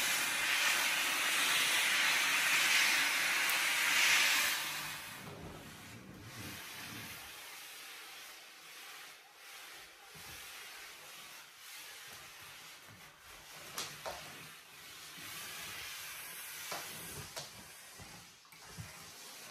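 Handheld steam cleaner hissing as its wand jets steam onto a mattress. After about five seconds the hiss drops away, leaving a faint hiss and a few light knocks.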